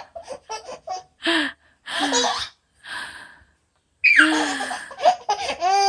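A woman's breathy gasps building up to a sneeze, which comes out loud about four seconds in, followed by a baby laughing near the end.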